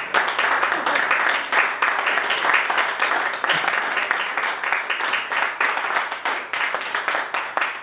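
Small audience applauding and clapping, the clapping thinning toward the end.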